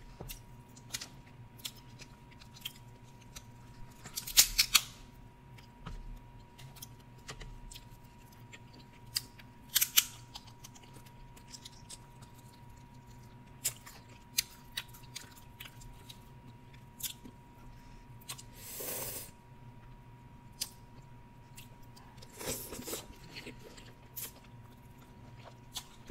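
Dungeness crab shell being cracked and picked apart by hand close to the microphone: sharp snaps and clicks scattered every few seconds, with quiet chewing.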